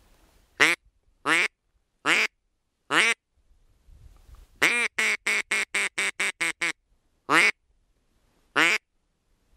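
Mouth-blown duck call sounding duck quacks: four single quacks about a second apart, then a quick run of about nine quacks, then two more single quacks.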